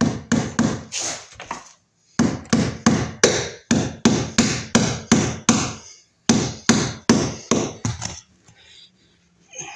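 Hammer tapping a cable staple into a wooden stud to secure the electrical cable, about three blows a second in three runs with short pauses, with lighter taps near the end.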